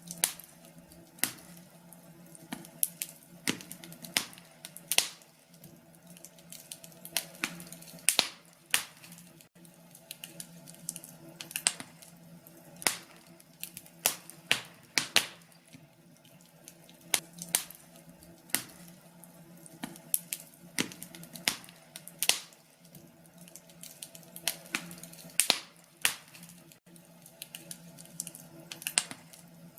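Wood fire burning in a fireplace, crackling: frequent sharp pops and snaps at irregular intervals over a faint steady hiss.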